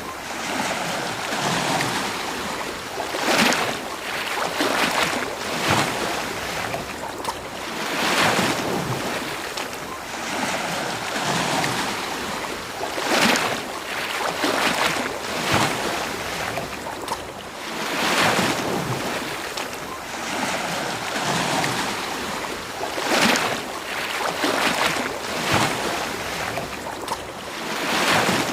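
Ocean waves breaking and washing up on a beach, one surge swelling and fading every few seconds.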